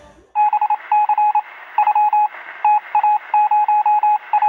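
Morse code: a single-pitch electronic beep keyed on and off in short and long pulses, in an irregular dot-and-dash pattern over a faint radio-like hiss. It starts about half a second in, just as the music before it cuts off.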